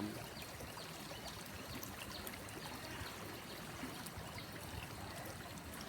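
Steady trickling, flowing water, like a small stream, with small scattered droplet ticks.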